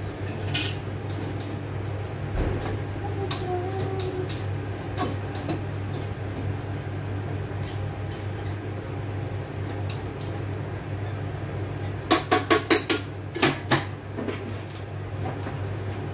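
Dishes and kitchen utensils clinking and knocking as plates and a lid are handled. About twelve seconds in comes a quick run of sharp clacks, all over a steady low hum.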